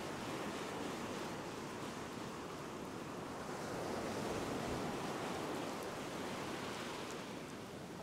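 Ocean surf breaking and washing up a sandy beach, a steady rushing that swells a little about four seconds in.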